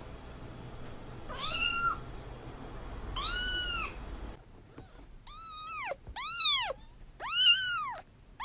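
Domestic cat meowing, five meows that each rise and fall in pitch: two over a background hiss, then three louder, clearer ones from a different recording.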